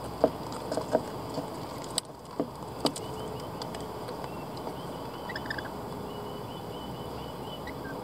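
Rainbow lorikeets feeding at a wooden seed tray: a few sharp taps and clicks of beaks picking at seed in the first three seconds, over a steady background hiss. Faint high chirping follows later.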